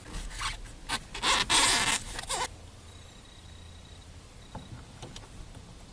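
Scratchy scraping of a hand tubing cutter working on copper pipe: several short rasping bursts in the first two and a half seconds, then quieter, with a few faint clicks near the end.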